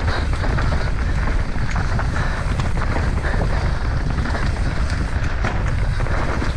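Mountain bike descending a dry, rocky dirt trail at speed: wind buffeting the microphone over the rumble of tyres on dirt and the bike rattling over rocks and roots in many small irregular knocks.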